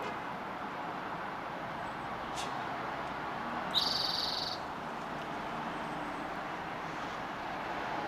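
Spotted towhee singing once: a brief high note, then a trill of just under a second around the middle, over steady background noise.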